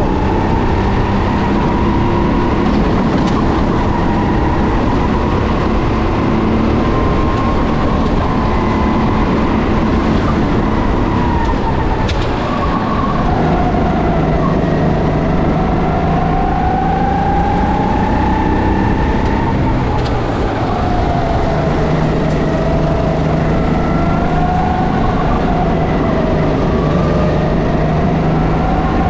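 Racing kart engine at full racing load, its pitch climbing and falling as it revs up along straights and drops off into corners, with two marked drops in revs along the way.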